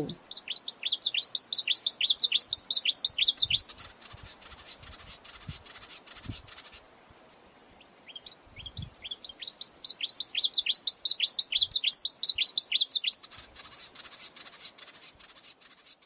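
Victorin's warbler singing: two long phrases of quick, sweeping whistled notes, about five a second, the second phrase starting faint and growing louder. A fainter, rapid pulsing sound fills the gaps between and after the phrases.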